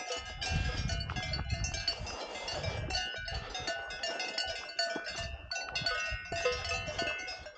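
Bells on grazing cattle clanging irregularly, several bells at different pitches ringing and overlapping.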